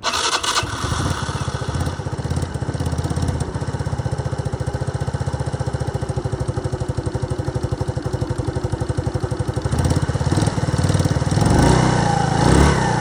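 An engine catching on a cold, hard start and running with an even, pulsing beat. Near the end it revs up briefly, then settles back to idle.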